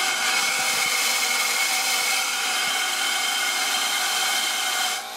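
Compressed air rushing steadily out through a sink's water lines as they are blown out to drain them for winter, with faint whistling tones in the hiss. It drops away briefly near the end.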